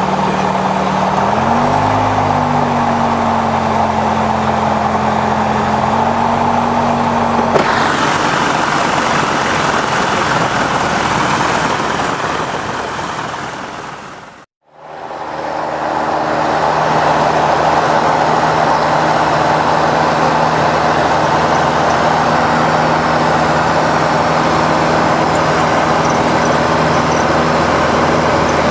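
Robin DR400-160's four-cylinder Lycoming engine running steadily, heard from inside the cockpit while taxiing, its note rising slightly about a second and a half in. About halfway through the sound fades out to silence and fades back in, the engine still running at a steady note.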